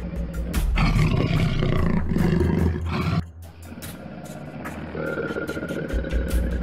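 A loud, rough animal roar lasting about two and a half seconds, cutting off suddenly about three seconds in. Background music comes back near the end.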